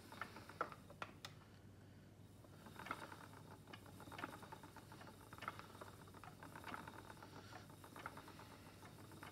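Faint clicking of a spinning wheel being treadled, starting about three seconds in and going on at roughly one or two ticks a second. There are a few soft clicks before it.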